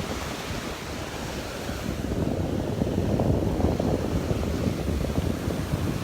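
Surf washing onto the beach, with wind buffeting the microphone in low gusty rumbles.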